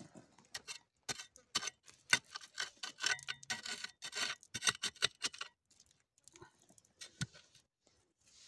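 Gloved hands scraping and digging into a bank of clay and gravel, with crumbling soil and small stones falling: a dense run of scratchy clicks that thins out after about five seconds.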